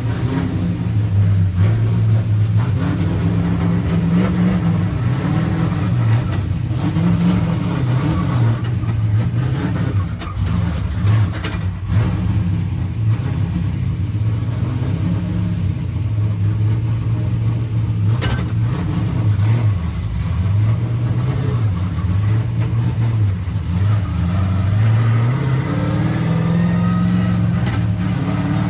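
Car engines running and revving, their pitch rising and falling repeatedly.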